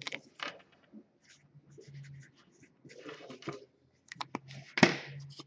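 Marker pen writing and being handled: short scratchy strokes and small clicks, with one sharp click near the end.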